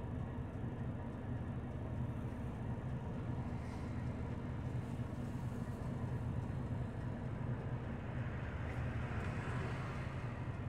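City bus heard from inside the passenger cabin: a steady low engine hum with road noise, and a little more hiss near the end.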